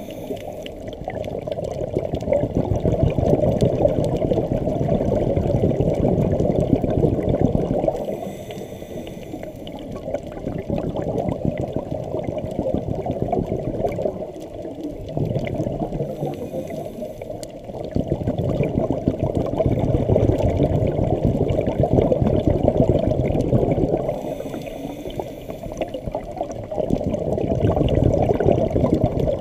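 A scuba diver's breathing heard underwater: a low, muffled rush of exhaled bubbles from the regulator alternates with quieter stretches of inhalation, in a slow cycle of about eight seconds.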